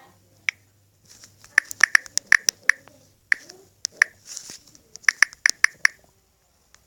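Typing on a computer keyboard: quick, irregular key clicks in three short runs with pauses between, as a search phrase is entered.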